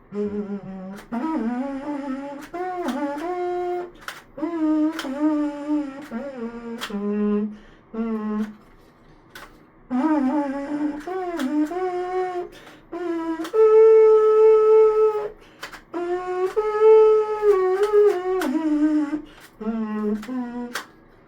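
3D-printed plastic trumpet playing a slow tune of separate notes in short phrases, with a long held note a little past the middle and sharp clicks between some notes. The tone is not super great, and the instrument still has a lot of air leaks.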